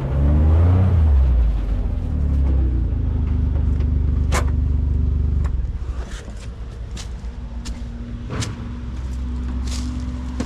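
A motor running with a steady low rumble and hum that drops quieter a little past halfway, with several sharp clicks over the second half.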